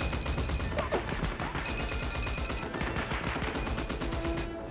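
Film sound of a multi-barrel Gatling gun firing continuously, a fast unbroken stream of shots.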